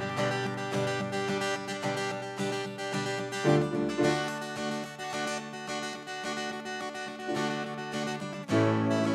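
Instrumental music with no singing: keyboard chords with plucked notes, changing chord twice, as the lead-in to a worship song.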